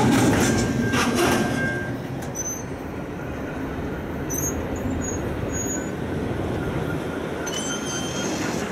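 Double-stack container cars of a freight train rolling past, steel wheels clicking over the rail joints, with a steady high wheel squeal in the first two seconds. The rumble drops after about two seconds, and thin high squeals come and go near the end.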